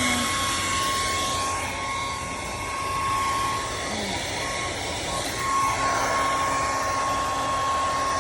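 Electric motor running at a steady speed, with a high, even whine over a rushing air noise.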